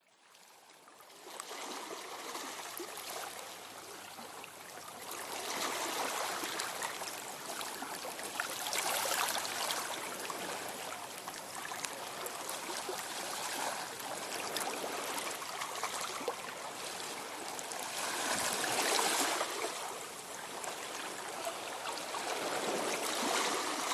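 A shallow stream running over a stony bed, a steady rush of water that fades in at the start.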